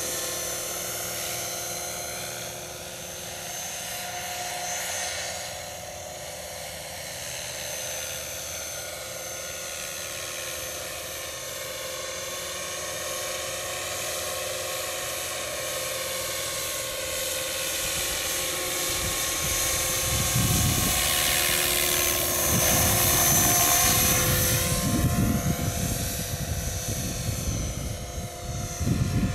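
Scale RC model helicopter (MD500D) in flight: a steady high whine of its motor and rotors whose pitch slowly wavers up and down as it manoeuvres, getting louder about two-thirds of the way through. Low rumbling gusts of wind on the microphone join in during the last third.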